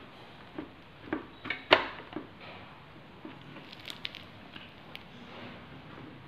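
Clear plastic visor of a flip-up motorcycle helmet being worked on its pivot: a run of sharp plastic clicks, the loudest about two seconds in, then a few lighter ticks.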